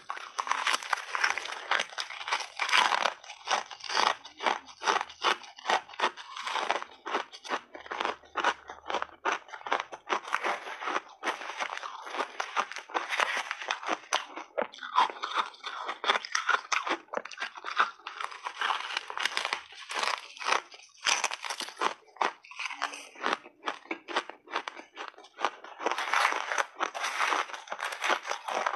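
Close-miked crunching and chewing of big bites of refrozen shaved ice: a dense, continuous run of sharp, brittle crunches.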